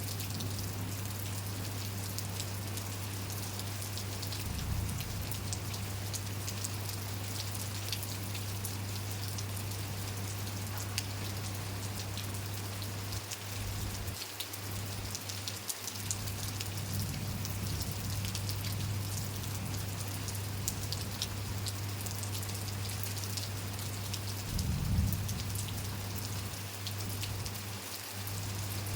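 Steady rain falling, with many individual drops ticking, over a constant low hum.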